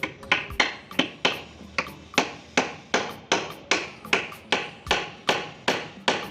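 A steady series of sharp knocks, about two and a half a second, each ringing briefly.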